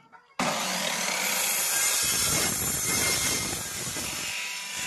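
Fujita mitre saw starting up abruptly and its blade cutting through a wooden board, the sound easing off near the end as the cut finishes and the motor winds down.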